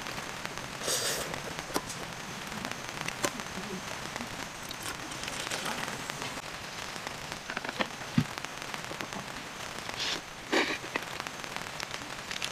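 Metal utensils clicking against metal camp pots and liquid poured from a can into a metal cup, over a steady crackling hiss.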